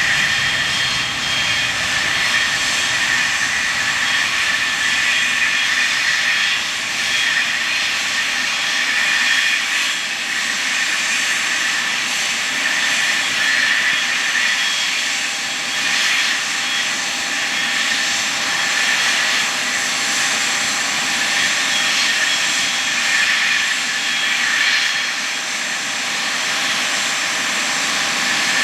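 Jet engines of a Boeing 777-9 airliner running with a steady high-pitched whine over a broad rushing noise; a low rumble fades out about a second in.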